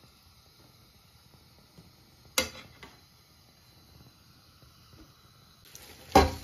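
Faint hiss of a large pot of water heating toward the boil, broken by two sharp knocks of kitchenware against the pot, about two and a half and six seconds in; the second is the louder.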